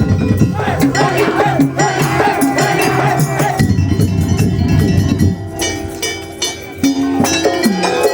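Daul music: a Madurese percussion band playing drums and other percussion under a wavering melody. The low drums thin out for about a second near six seconds in, then come back.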